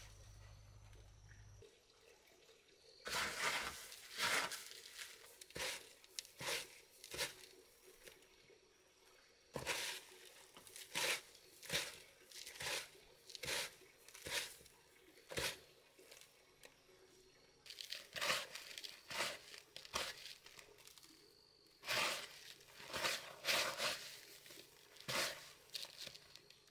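Dry breadcrumbs crunching and rustling as raw chicken drumsticks are pressed and turned in them by hand. The strokes come in irregular clusters, about one or two a second, with short pauses between.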